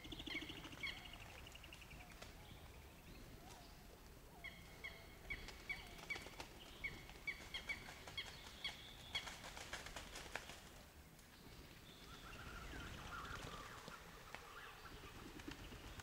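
A small bird repeats short high chirps, about three a second, for several seconds, with other birds calling. About nine seconds in there is a brief flurry of wing flaps from mountain imperial pigeons at the water.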